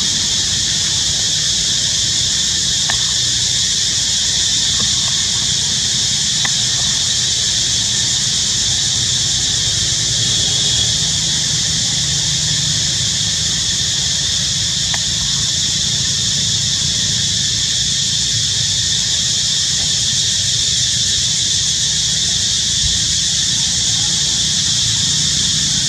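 Steady, high-pitched insect chorus that never lets up, over a low rumble.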